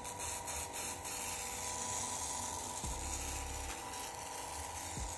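Steady hum of a small electric motor under an even hiss.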